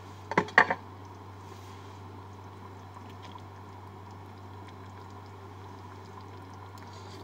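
Pan of chicken caldereta simmering on a gas stove: a steady bubbling hiss over a constant low hum. Two sharp knocks come about half a second in, as a metal spoon goes into the pan.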